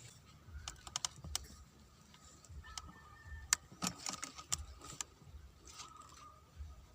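A scatter of light, sharp clicks and ticks, coming irregularly about a dozen times over several seconds, like small objects being handled close by.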